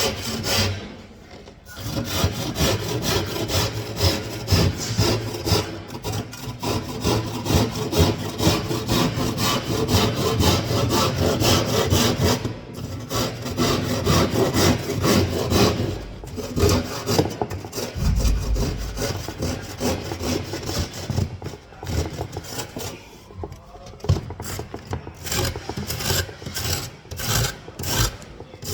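Hand saw cutting through gypsum board in quick back-and-forth strokes, broken by a few short pauses.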